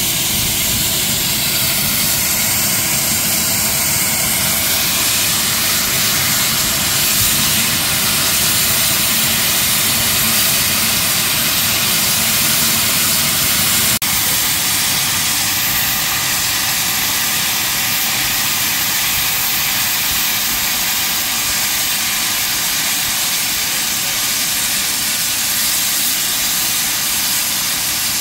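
GWR small prairie tank locomotive 5541 standing with its safety valves blowing off: a loud, steady hiss of escaping steam.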